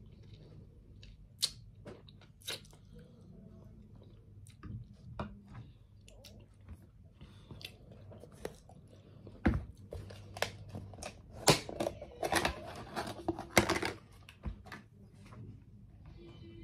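Close-up eating sounds: chewing and crunching, with scattered sharp clicks of a utensil against a dish. The clicks and scrapes grow busier about twelve to fourteen seconds in.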